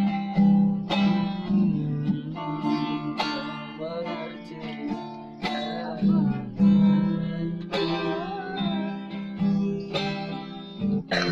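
Guitar music: a slow intro of chords or notes struck about once a second and left to ring.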